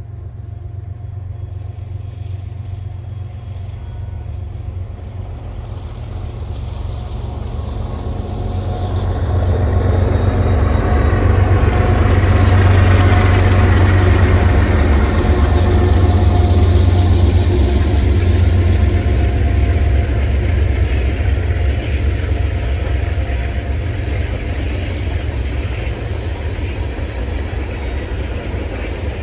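Diesel freight locomotives approaching and passing, the engine rumble building to its loudest about halfway through, then easing a little as the train keeps rolling by.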